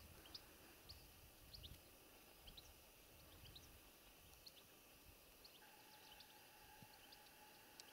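Near silence with faint, scattered chirps of small birds. A faint steady hum comes in a little over halfway through.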